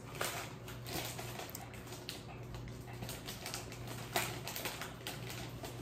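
Plastic snack packet being opened and handled: a scatter of light, irregular crinkles and small clicks.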